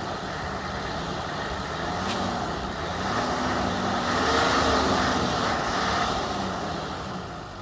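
A car engine revving up and down as the vehicle tries to drive through snow, its pitch rising and falling. A rushing noise swells around the middle, and the sound drops away near the end.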